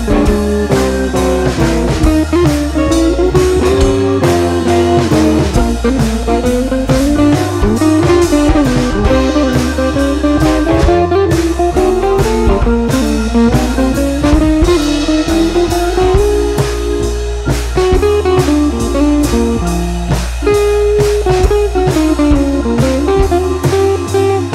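Background music: a blues-style guitar tune over a steady drum beat.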